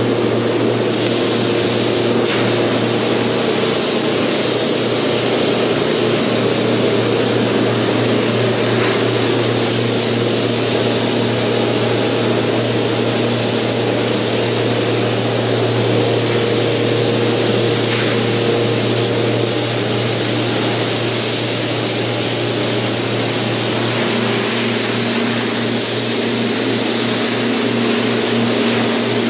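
Gravity-feed compressed-air paint spray gun hissing steadily as base coat is sprayed, over a steady low hum.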